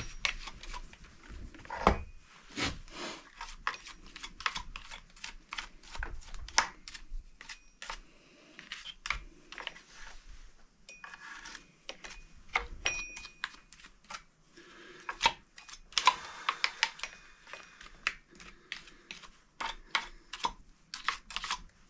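Irregular clicking and scraping of a small hand tool picking sawdust and grime out of a Husqvarna chainsaw's bar-mount and clutch area with the bar removed.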